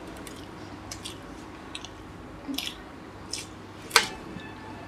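Chewing and wet mouth noises of masala dosa being eaten by hand: a scatter of short, soft clicks, the sharpest about four seconds in.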